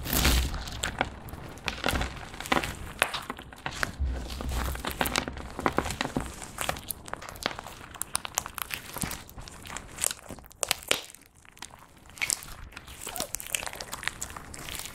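Clear slime mixed with crumbled eyeshadow powder and lip gloss being kneaded and stretched by hand, giving many small irregular sticky crackles and pops.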